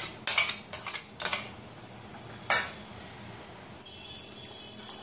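A steel spoon scrapes and clinks inside a steel mixer-grinder jar and against a steel mixing bowl as ginger-garlic-chilli paste is emptied out. There are several quick scrapes and clinks in the first second and a half, then one sharp clink about two and a half seconds in.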